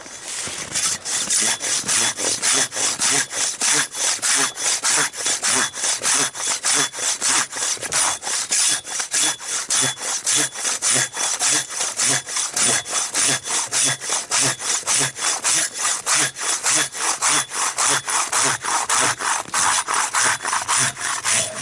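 Large folding handsaw cutting through a frozen pine log in steady, even back-and-forth strokes, about three a second. The wood is frozen and very tough.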